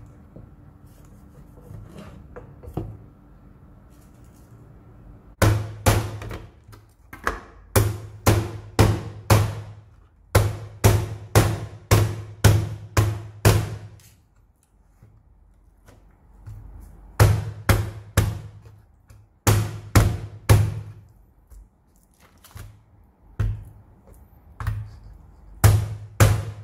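Chinese cleaver chopping raw chicken into pieces on a wooden chopping board: runs of heavy thuds about two a second, starting about five seconds in, with short pauses between runs. Before that, quieter knife work trimming the chicken, with a faint steady hum.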